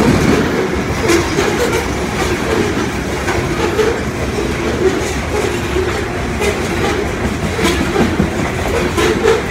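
Loaded coal hopper cars of a freight train rolling past, a steady rumble with the wheels clicking irregularly over the rail joints.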